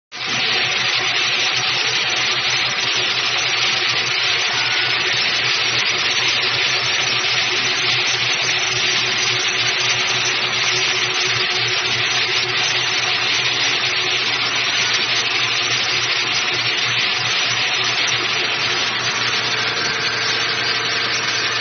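Bridge-type stone cutting machine's large circular saw blade cutting granite kerb blocks under a water spray. It makes a loud, steady hiss of blade and water over a constant low motor hum.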